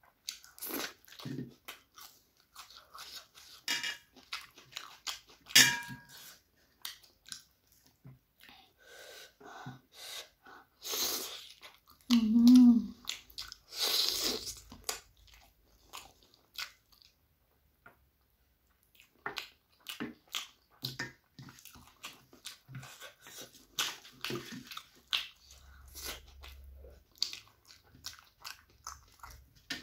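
Close-miked chewing, smacking and wet mouth clicks as puffed rice and chicken curry are eaten by hand. A short hum about twelve seconds in, and a louder slurp as curry is sucked off the fingers.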